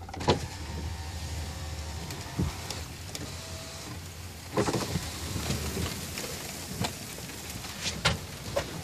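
Truck's electric window motor running steadily for about four seconds as the rain-spattered side glass lowers, then stopping. After that the open window lets in a louder hiss from outside, with scattered taps.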